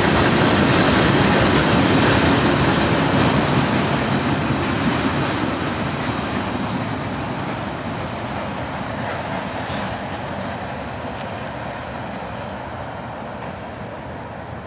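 Freight train of tank cars, covered hoppers and boxcars rolling past on the rails with a steady rumble of wheels on track. The sound fades steadily from about five seconds in as the end of the train pulls away.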